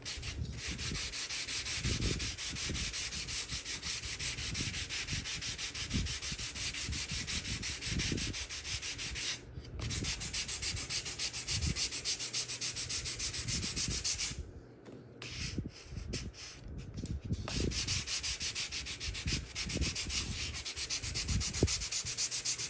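Fine sandpaper on a hand-held metal sanding block rubbing rapidly back and forth over balsa wood. It is sanding a glued-on balsa repair patch down flush. The strokes stop briefly about ten seconds in, then thin out for a few seconds around the middle before resuming.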